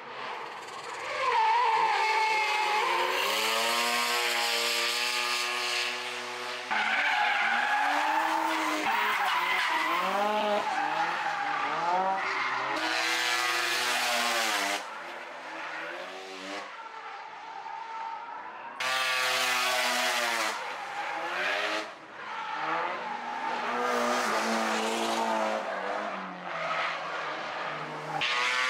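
Mazda FD RX-7 drift car's twin-rotor rotary engine revving hard, its pitch swinging up and down as the throttle is worked, with tyres squealing in screeching stretches while the car slides. The sound changes abruptly several times.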